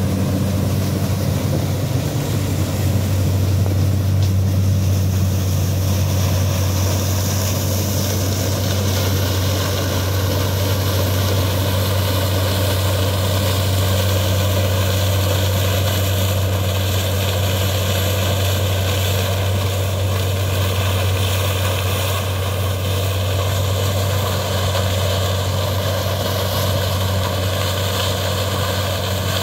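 Diesel engines of a John Deere 3522 sugarcane harvester and the tractor hauling its cane wagon running steadily under harvesting load, a continuous low drone with a constant hum and no change in pitch.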